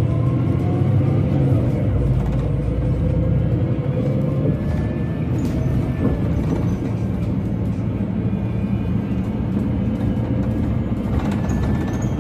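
City bus engine running, heard from inside the passenger cabin while the bus moves along, with a faint whine that shifts in pitch during the first few seconds.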